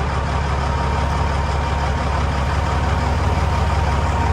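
Semi truck's diesel engine idling steadily, with a fast even low pulse.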